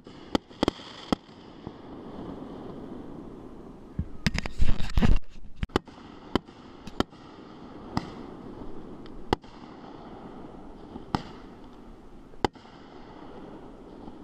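Aerial fireworks going off: sharp bangs at irregular intervals, with a quick dense cluster of bangs about four to five seconds in, the loudest part.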